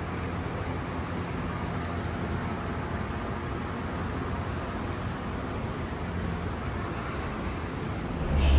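Steady ambience of a large railway station concourse: an even background hum and noise. A louder, deeper sound comes in near the end.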